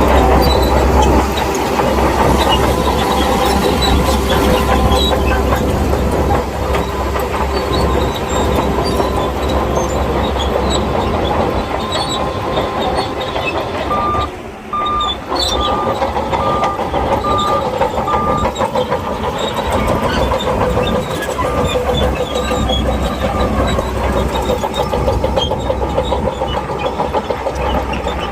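Shantui bulldozer working: its diesel engine runs loud and steady while the steel tracks clatter. Midway, a beeping alarm sounds for about four seconds, roughly two beeps a second.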